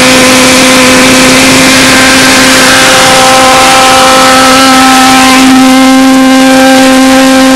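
Model pulsejet engine on a radio-controlled boat running flat out: a very loud, steady buzzing drone with a strong low tone and a stack of overtones, its pitch shifting slightly about five seconds in.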